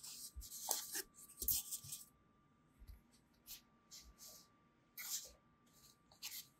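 Plastic packaging and foam inserts rustling and scraping as hands unpack a pair of plastic-wrapped motion-capture gloves: a busy run of rustles in the first two seconds, then scattered short rustles.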